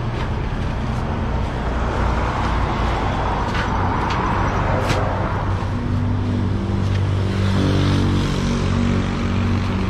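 Roadside traffic: a vehicle passes close by over a few seconds, over a steady low engine hum, with a couple of light knocks in the middle.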